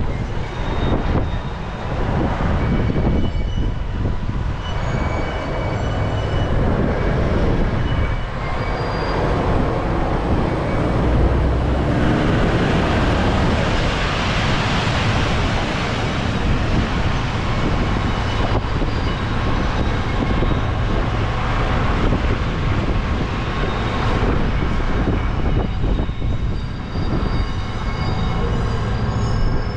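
Freight train running past: a continuous heavy rumble of the diesel locomotive and its wagons, with thin high squeals from the wheels on the rails.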